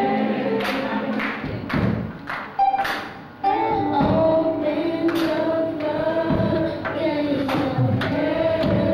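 A young girl and a man singing a gospel song into a microphone, held notes rising and falling, over accompaniment with a steady beat of thuds; the music briefly drops away about three seconds in.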